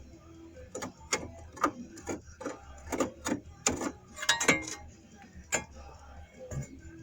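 A string of sharp, irregular metal knocks and clinks, about fifteen over five seconds with a quick cluster near the middle: steel being tapped and handled while a notched angle-iron patch piece is worked and test-fitted.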